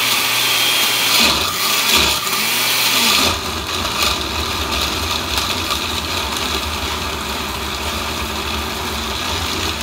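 Oster countertop blender running at full speed, grinding a thick mixture with a little water. It is louder and rougher for about the first three seconds, then settles into a steadier whir.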